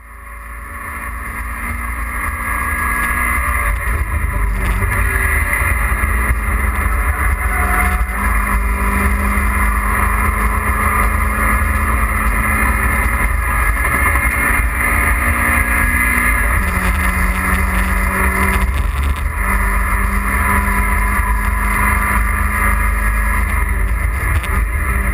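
Mazda MX-5 Miata's four-cylinder engine running hard on a track lap, heard inside the cabin, with road and wind noise under it. It fades in over the first couple of seconds, and its pitch drops and climbs again a few times.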